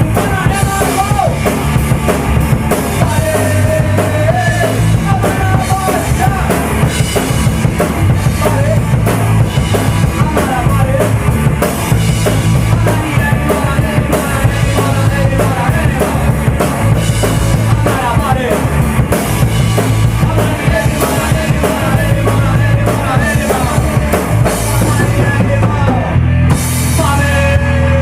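Punk rock band playing live: loud drum kit, distorted electric guitar and bass guitar driving a fast, steady beat.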